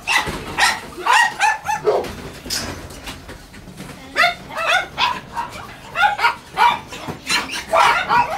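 Dogs barking repeatedly in short runs of sharp barks with brief pauses between them.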